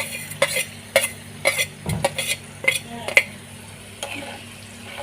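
A spoon stirring in a small bowl of hot mustard oil where garlic cloves, asafoetida and fenugreek seeds are frying and sizzling. The spoon clinks against the bowl several times a second for about three seconds, then stops, and the sizzle carries on.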